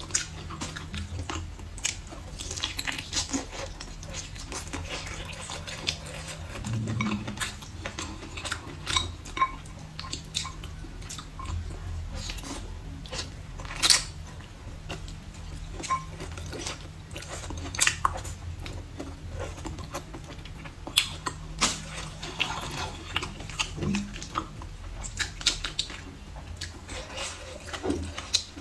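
Close-up eating sounds: wet chewing of stewed glass noodles and meat, with many short clicks of wooden chopsticks against a ceramic bowl. The loudest click comes about halfway through.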